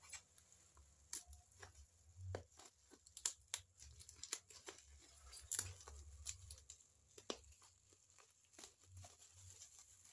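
Faint tape and paper labels being picked at and peeled off a parcel's black plastic wrapping, with scattered short tearing sounds and plastic crinkles.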